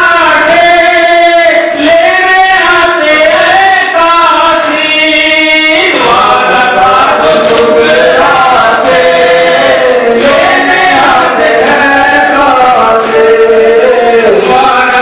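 Men singing a Shia Muharram lament (noha) in a chanting style, amplified through microphones. A single lead voice carries the first part, and from about six seconds in several voices sing together.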